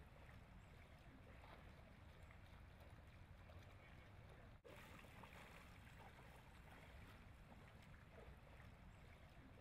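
Near silence: faint outdoor background hiss and low rumble, with a brief dropout about halfway through.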